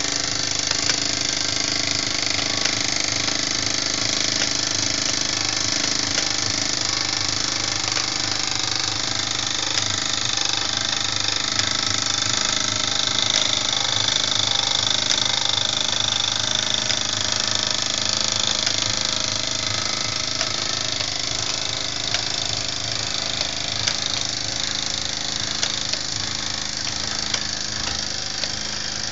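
Mamod live-steam roller running steadily, its oscillating cylinder chuffing fast, with the whir of the model lineshaft pulleys it drives by belt.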